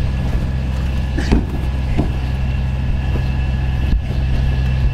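A steady low mechanical hum throughout, with a few brief thuds of people landing on trampoline beds, the clearest about a second in.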